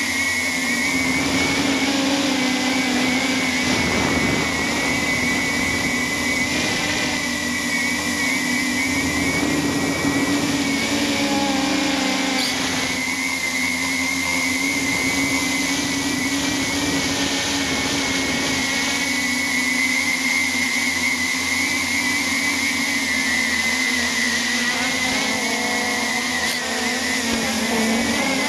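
Walkera UFO MX400 quadcopter's motors and propellers whining steadily, heard from the camera mounted on the craft itself, the pitch wavering slightly as the rotors speed up and slow down in flight.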